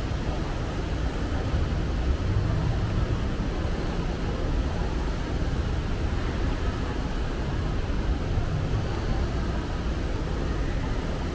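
Shopping mall background ambience: a steady low rumble with faint, indistinct voices of people around.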